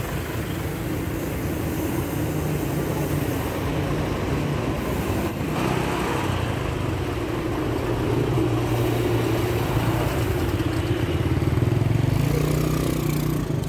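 Congested street traffic: a steady low engine rumble from the large trucks alongside, with road and wind noise over it. It grows a little louder toward the end.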